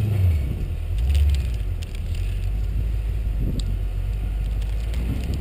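Off-road competition truck's engine running with a heavy low rumble as it crawls up a rock hill, swelling in a brief rev about a second in. A few faint clicks near the middle.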